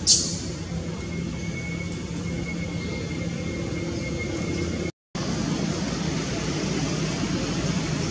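Steady outdoor background noise, with a short sharp high squeak right at the start and a faint steady high whine for a few seconds; the sound cuts out for a moment about five seconds in.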